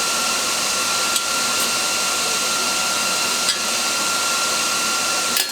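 A steady airy hiss with a faint constant high-pitched tone, holding level throughout, with a couple of faint ticks.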